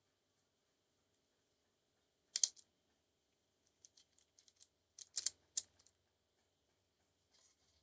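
Clicks and taps of small hard parts being handled: one sharp knock about two and a half seconds in, then a run of light clicks and a few louder ones near the middle.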